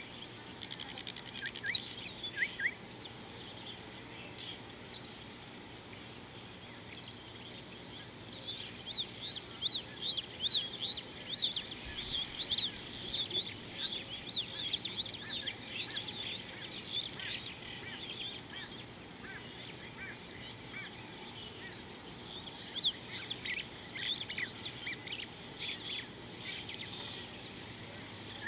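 Wild birds chirping and calling in quick, high-pitched notes over a steady faint background hiss. The chirping is busiest from about eight to twenty seconds in, with another flurry a few seconds before the end. There is one sharp click about two seconds in.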